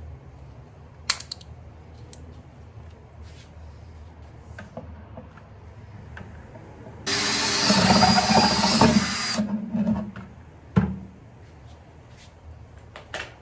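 Cordless drill boring a half-inch hole through the bottom of a plastic 5-gallon bucket: one loud burst of drilling about two and a half seconds long, starting about seven seconds in. A few light clicks and knocks come before and after it.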